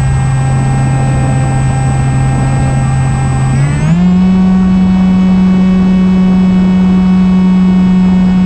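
Electric motor and propeller of an Opterra flying-wing RC plane, a steady whine that steps up in pitch about four seconds in as the throttle is raised, then holds there.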